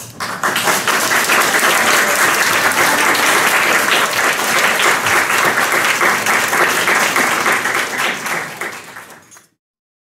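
Audience applauding: many hands clapping together, starting just after the last bell chord dies away, fading out near the end and then cutting off to silence.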